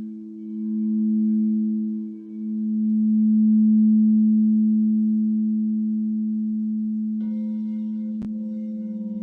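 Crystal singing bowls sounding together in long, steady tones that swell and fade in loudness. About seven seconds in a higher-pitched bowl joins, and a single sharp click follows a second later.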